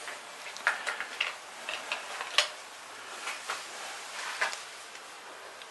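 Wire strippers working on electrical cable insulation: irregular small clicks and short scrapes as the insulation is notched and pulled off.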